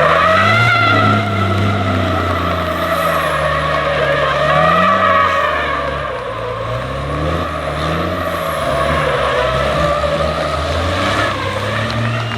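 Motorsport vehicle engines running hard at a race circuit, the engine note rising and falling repeatedly as they rev up and back off.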